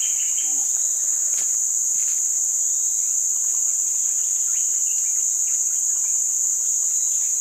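Steady, high-pitched drone of a forest insect chorus that does not break, with a faint knock about a second and a half in.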